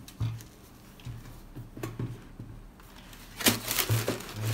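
A few light knocks of a sneaker being set down, then, from about three and a half seconds in, loud crinkling and rustling of tissue paper and a cardboard shoebox being handled.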